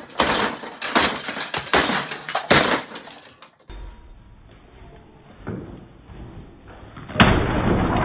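Hammer blows smashing the wooden body of an old viola, with the wood cracking and splintering. Several quick strikes come in the first three and a half seconds, then after a quieter stretch one heavy crash about seven seconds in.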